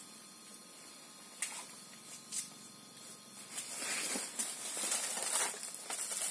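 Banana plant sheaths rustling and tearing as they are pulled off and stripped to make tying cord. After a couple of single clicks, a dense crackling builds up about three and a half seconds in and grows louder.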